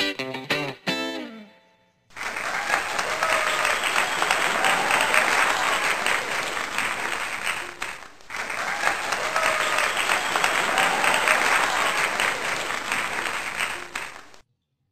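A plucked guitar tune ends in the first two seconds. Then a crowd applauding, played as a recording twice over with a brief dip about eight seconds in, cuts off abruptly near the end.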